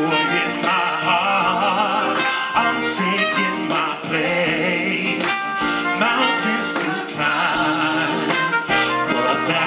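Live band playing a song: a male lead singer over electric guitar, drums and keyboards.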